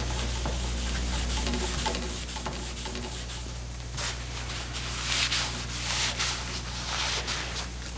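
Bronze ribbon being hand-polished with Simichrome metal polish: irregular rubbing strokes, stronger about four and five seconds in, over a steady low hum.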